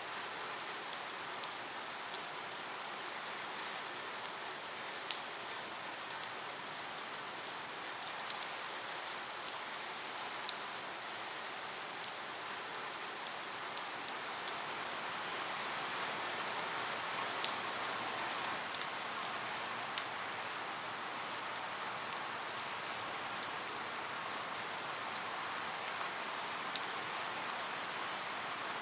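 Steady rain falling, an even hiss with scattered sharp drops ticking through it.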